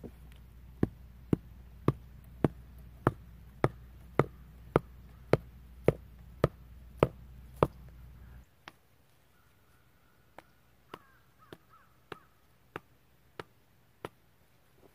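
A hand tool striking wood in steady, sharp blows, about two a second, a dozen or so in a row. After about eight seconds a quieter, less even run of blows follows.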